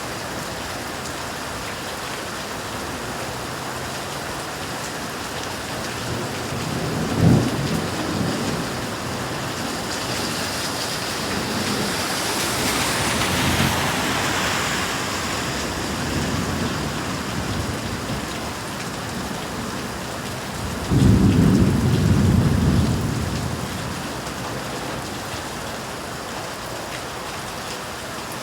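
Steady rain in a thunderstorm, with thunder: a sharp clap about seven seconds in, a rolling swell a few seconds later, and the loudest low rumble a little past two-thirds of the way through.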